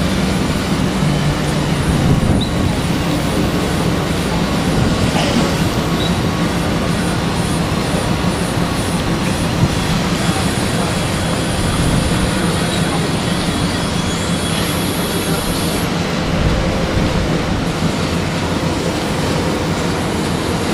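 Panama Canal lock towing locomotives (mules) running on their track beside a ship in the lock: a steady rumble with a low hum. A thin high squeal rises steeply about 13 s in and holds for a couple of seconds.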